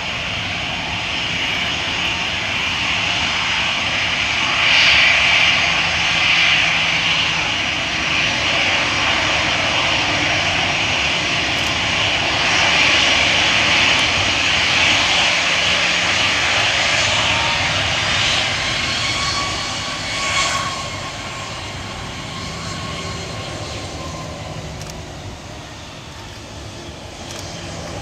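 Four-engined Airbus A340-300 airliner's CFM56 turbofans at taxi power as it rolls past, a steady jet whine that swells while the aircraft is closest and eases off after about twenty seconds. A short sharp noise sounds about twenty seconds in.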